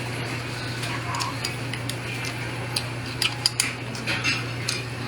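Eating utensils clicking and clinking against a bowl of malatang, in irregular light taps that come thicker about halfway through, over a steady low hum.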